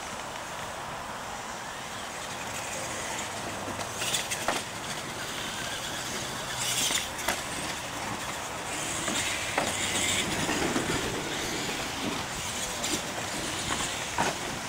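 Radio-controlled monster trucks racing on a dirt course: motors and gears whirring in bursts over tyre noise, with a few sharp knocks as they run over the ramps.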